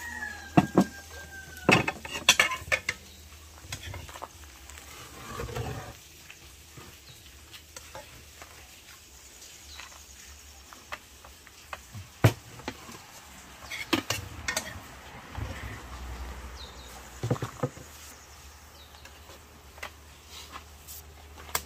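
Metal spoon scooping gravy from an aluminium pot and dishing it onto ceramic plates and bowls, with scattered sharp clinks and knocks of spoon against pot and dishes and soft scraping between them. The clinks are thickest in the first few seconds and come again now and then later on.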